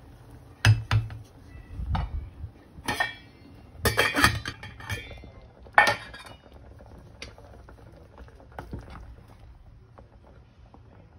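Stainless steel cooking pot and metal utensils clanking and clinking: about half a dozen sharp metallic knocks in the first six seconds, some ringing briefly, then only faint ticks.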